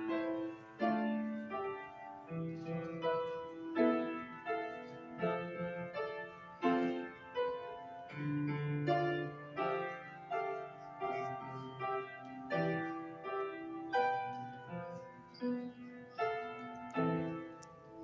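Grand piano playing a piece: a string of struck notes, each ringing and fading, with lower bass notes underneath.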